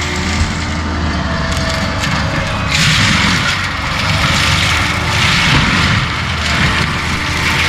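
Skid steer's engine running steadily while its forestry mulcher head grinds wood. About three seconds in, a louder crackling hiss sets in as the teeth chew into stumps and debris.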